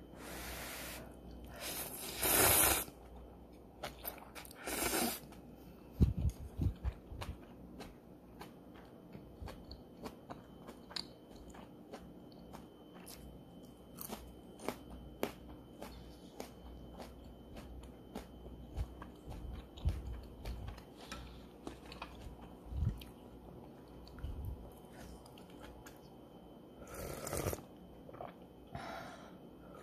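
A person eating ramen up close: a few short, noisy slurps of noodles, the loudest a couple of seconds in and another near the end, with close chewing and small wet mouth clicks in between.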